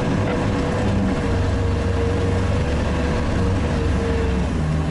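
Sherp all-terrain vehicle's diesel engine running steadily, heard from inside the cab as a low drone, with a steady whine over it that fades near the end.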